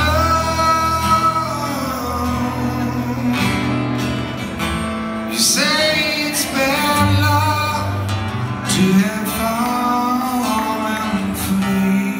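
Live rock ballad: a male voice sings long held notes over guitar accompaniment.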